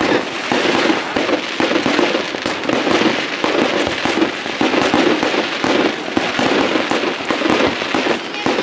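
Fireworks display: many bangs and crackles from aerial shells bursting and rockets going up, one after another.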